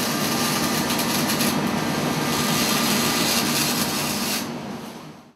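Sound effect for an animated logo: a steady, rough, grinding hiss that fades out near the end and stops.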